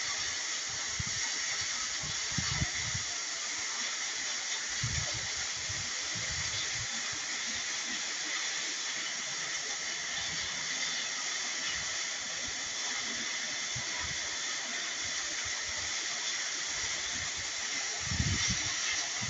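QSMYOYE 2200 W electric pressure washer spraying its high-pressure water jet onto paving: a steady hiss, with a few faint low thumps.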